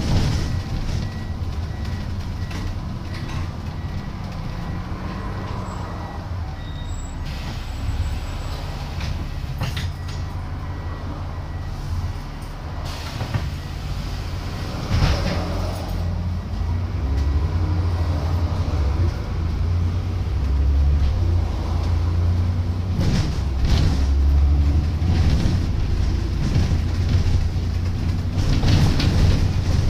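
Diesel engine of a Plaxton President double-decker bus heard from on board, running with its pitch rising and falling as the bus drives. It gets louder in the second half, with a few knocks and rattles from the body.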